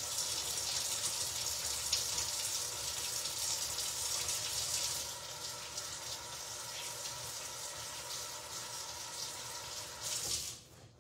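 Kitchen faucet running while hands are washed under it, a steady rush of water that is shut off near the end.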